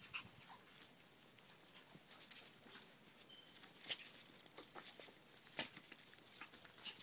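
Faint scuffling of a Yorkshire terrier and a Chihuahua wrestling on concrete: claws scratching and paws pattering in scattered clicks, with one sharper click a little over two seconds in.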